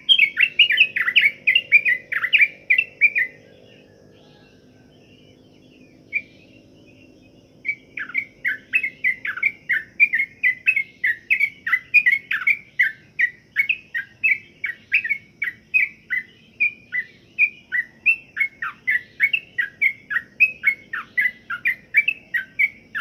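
Yellow-vented bulbul (trucukan) singing: quick, repeated chirping notes, about three a second. The song pauses for a few seconds with a single note in between, then runs on steadily. A faint low hum lies underneath.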